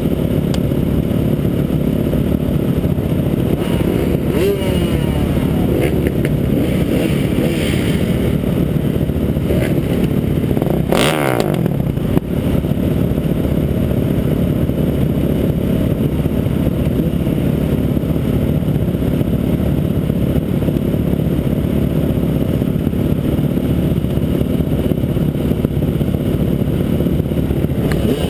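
Several dirt bike engines running at a motocross start line, a steady dense rumble, with one engine revving up and back down about eleven seconds in.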